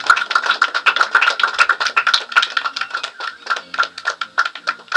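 A small group of people clapping in a small room, the separate claps coming quick and uneven, with a steady high-pitched tone running underneath.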